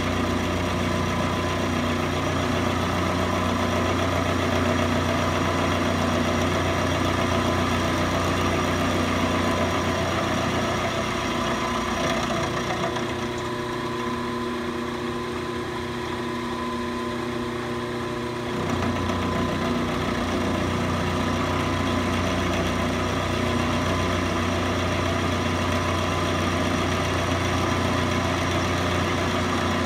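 Milling machine running, its end mill cutting a flat on the side of a round steel bar to form a square bolt head: a steady motor drone with cutting noise. For several seconds around the middle the sound drops a little and its low drone thins out, then it picks up again.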